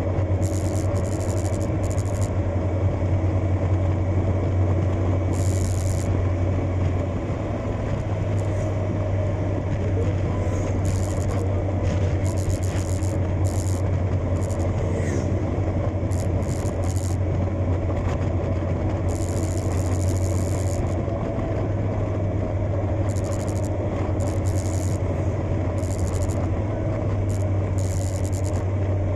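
Motorcycle running at cruising speed on the road, a steady low engine drone mixed with wind rushing over the microphone, with short bursts of hiss coming and going.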